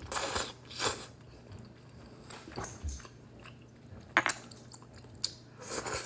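Close-up eating sounds of udon noodles being chewed, with a few louder wet bursts in the first second and a couple of sharp clicks later on.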